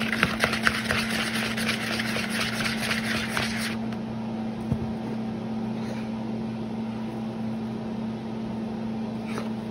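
Halved cherry tomatoes in olive oil tossed in a clear plastic bowl, rattling and swishing for about three and a half seconds, then stopping. A steady low hum continues underneath, with a single knock a little later.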